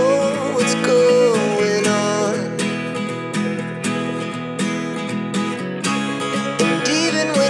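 Background music: a pop song with strummed acoustic guitar under a melody line, which rises in again near the end.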